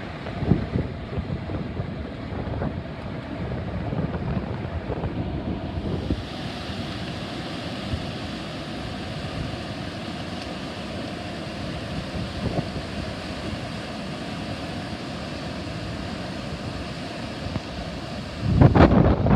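Wind buffeting the microphone outdoors: an uneven, rumbling rush of noise, with a sudden louder rush near the end.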